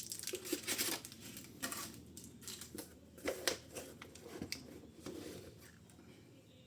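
Packaging being handled and opened: irregular crinkling and tearing rustles with a few sharp knocks, dying down near the end.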